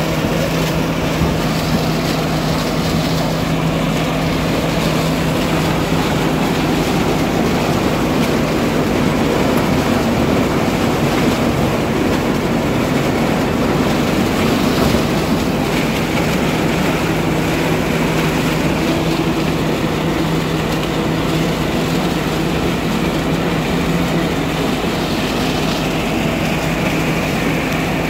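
IMT 577 DV diesel tractor engine running steadily under load, driving a SIP Tornado 80 trailed corn picker through its PTO shaft while picking corn; the engine's hum and the picker's machinery make one even, continuous din.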